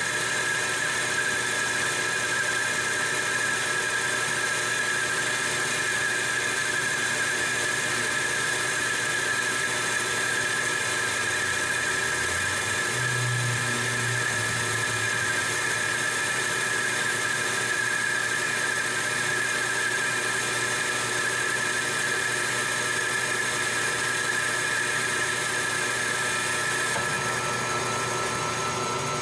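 Metal lathe turning a 316 stainless steel bar, taking a 50-thousandths roughing cut. A steady high-pitched tone sits over the machine's running noise, and the upper hiss thins out near the end.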